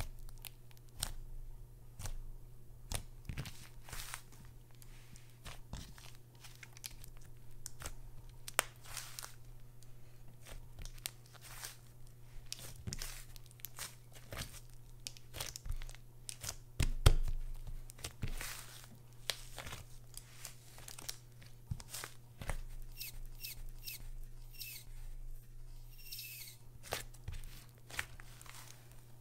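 Thick, clay-like pink slime being kneaded, squeezed and stretched by hand, giving irregular sticky pops, crackles and tearing sounds. One louder thump comes about halfway through. A faint steady low hum runs underneath.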